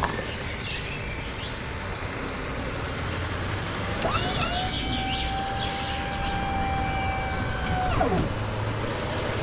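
A small electric motor whining: it spins up about four seconds in, runs at a steady pitch for about four seconds, then winds down, over steady outdoor background noise.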